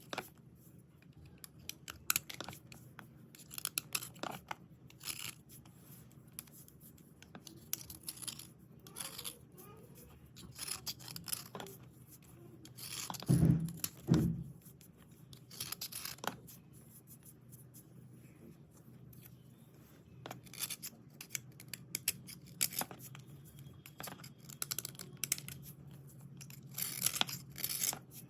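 Dry white slate pencils and slate pieces being scraped and rubbed in irregular scratchy strokes, with two heavy knocks close together about halfway through.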